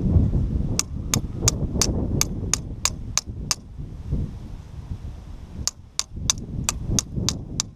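Pair of pliers tapping on something hard in a steady rhythm, about three sharp taps a second: a run of about nine taps, a pause, then about seven more, over a steady low rumble.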